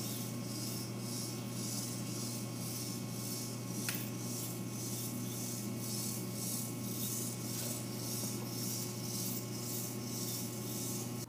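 Servo snake robot made of nine Dynamixel servos crawling in a worm-style wave: a quick, even rhythmic rasping from its servos and body scraping the floor, over a steady low hum, with one sharp click about four seconds in.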